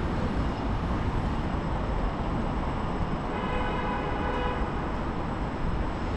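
Steady city street traffic noise, with a pitched, horn-like tone sounding for about a second and a half a little past the middle.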